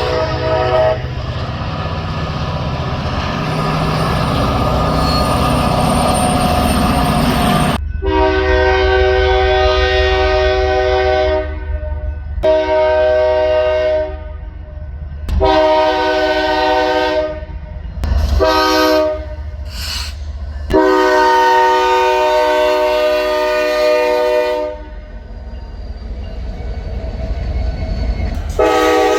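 Locomotive air horns. A horn blast ends just after the start, then a train rolls by with loud rumbling rail noise. After an abrupt change about eight seconds in, a horn sounds a series of blasts (long, shorter, long, two short, then a long one), and another blast begins near the end.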